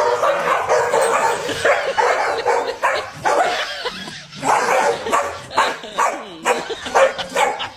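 A dog barking over and over in short, sharp barks, several a second.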